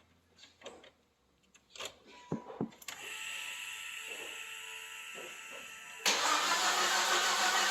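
A 2005 Volvo XC70's engine turned over on the starter with the ignition disabled, so it cranks without firing. A few light clicks and a steady hum come first, and the loud cranking cuts in suddenly about six seconds in. The mechanic suspects a jumped timing belt, and the cranking doesn't sound too promising.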